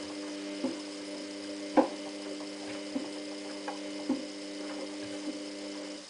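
Samsung WF8804RPA front-loading washing machine turning its drum slowly, with a steady motor whine and a light knock about once a second as the load tumbles. The whine cuts off at the end.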